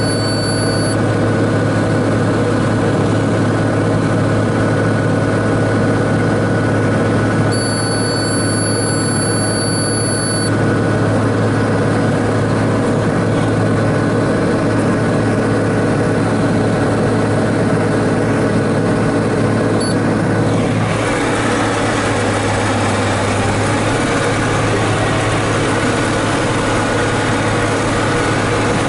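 John Deere 4055 tractor's six-cylinder diesel engine running steadily, heard from inside the cab, while the tractor pulls a round baler through a hay windrow. About two-thirds of the way through, the sound turns brighter and hissier.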